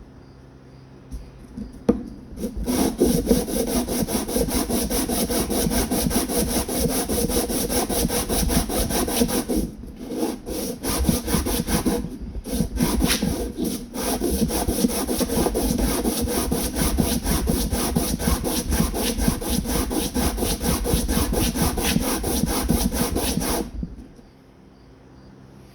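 Coarse 60-grit sandpaper rubbed by hand over handle scales: a long run of quick, even sanding strokes. It starts a couple of seconds in, pauses briefly twice around the middle, and stops shortly before the end.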